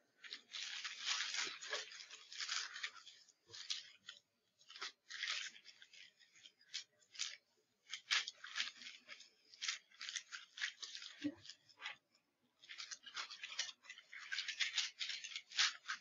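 Paper wrapper of a sterile glove pack rustling and crinkling as it is unfolded and opened out flat, in a string of short bursts with brief pauses.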